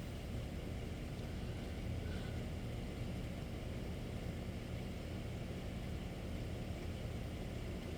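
Steady low background rumble, with no gunshots.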